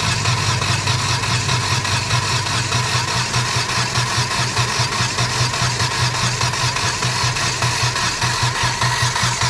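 Hyundai Xcent engine idling steadily with an even, regular pulse, freshly refitted after a timing chain and head gasket repair.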